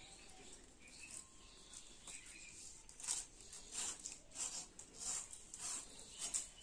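Dried coconut frond leaflets being stripped against a bonti blade to free the midribs for a broom: a run of faint, dry rasping scrapes, about one every half second or so, louder from about three seconds in.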